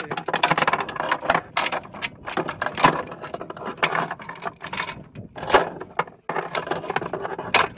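Belt of linked 7.62 mm minigun cartridges clattering and clinking as it is fed by hand into a metal ammunition can, a dense irregular metallic rattle with a few sharper clacks.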